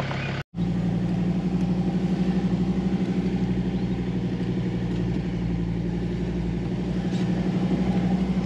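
Diesel 4x4 engine running, a steady low drone with a fast, even pulse. It breaks off for a split second about half a second in.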